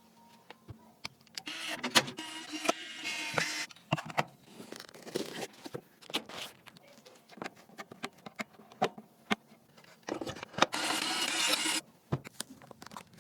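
A small electric motor whirs twice for about two seconds each, with many clicks and knocks of hard parts being handled in between, typical of a PC being put together.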